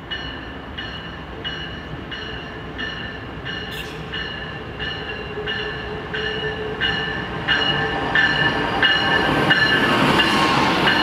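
Locomotive bell ringing steadily, about three strokes every two seconds, as a train approaches; the train's rushing running noise swells from about eight seconds in.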